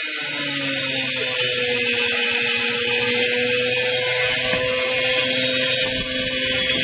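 Washing machine on its spin cycle with a heavy load, its motor giving a steady whine that dips slightly in pitch in the first second and then holds, over a loud hiss.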